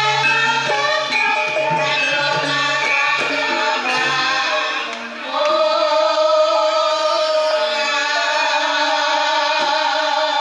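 Javanese gamelan ensemble playing Banyumasan-style gending, with a run of struck metallophone and gong-chime notes. About halfway through a long, wavering sung line enters over the instruments.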